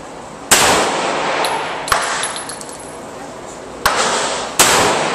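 Four pistol shots from a 1911-style .45 ACP pistol, each ringing on in a long echo off the walls of an indoor range. The first and last shots are the loudest.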